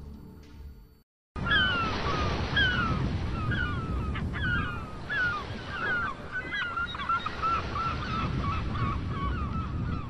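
After a brief silence, birds call again and again with short falling cries over a steady rushing noise. The cries run together into a quick chatter near the end.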